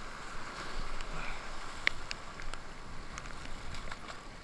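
Ocean surf washing and fizzing over boulders, with wind rumbling on the microphone and a few short sharp ticks scattered through it.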